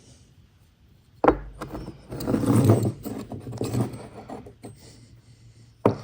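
Engine parts being handled on a bench: a sharp knock about a second in, then a couple of seconds of rubbing and scraping, scattered clicks, and another knock near the end.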